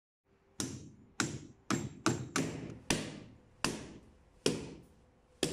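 A hammer knocking repeatedly on the hard shell of a whole coconut to crack it open: nine sharp knocks about half a second apart, coming more slowly toward the end.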